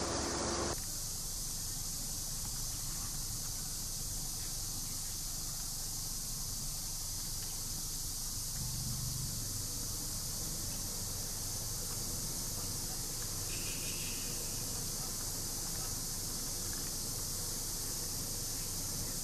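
Steady high-pitched hiss of outdoor ambience, with a short low rumble about nine seconds in and a brief high chirp about fourteen seconds in.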